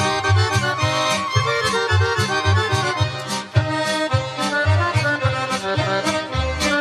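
Accordion playing lively folk dance music over a steady, regular bass beat.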